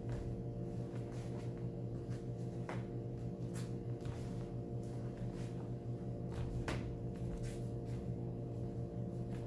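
Sharp snaps of a martial-arts uniform and footfalls on foam mats as a taekwondo form is performed. A few short, sharp snaps are spread through, the clearest near the middle, over a steady room hum.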